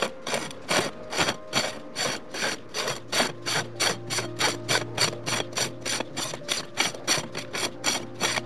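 Cotton-gloved hands rubbing and gripping on the barrel of a Russian MTO-1000 mirror lens as it is turned round by hand, a short rasping stroke about three times a second.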